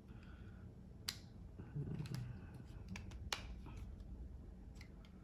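Small 3D-printed plastic parts being handled and fitted together, with a few light clicks, the sharpest about a second in and just after three seconds.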